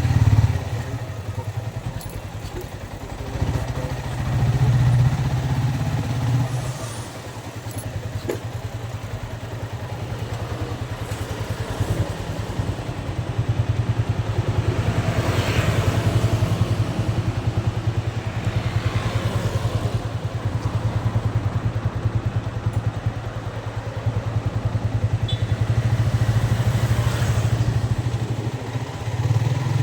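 Yamaha Vixion motorcycle's single-cylinder four-stroke engine running on the move. It eases off about a quarter of the way in, then builds steadily again, with two brief rushes of noise midway.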